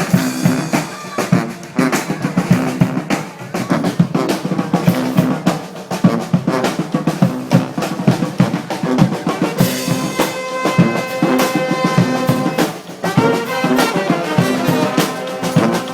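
Live brass street band playing, led by the drum section beating a fast rhythm on snare and bass drum. Sustained horn notes join in about ten seconds in.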